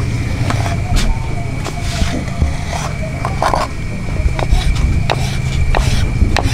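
A kitchen knife slicing slippery aloe vera gel into cubes on a wooden cutting board: irregular sharp taps of the blade on the board, about two a second, with a soft wet squish.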